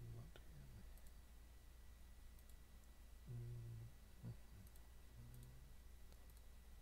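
Near silence: room tone with a few faint, scattered clicks and two or three brief, faint low hums of a voice.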